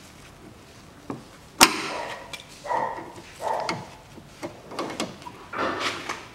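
Hand tools working a hose clamp on a CVT oil-cooler hose to take the hose off: one sharp metal click about one and a half seconds in, the loudest sound, with smaller clicks and scraping around it.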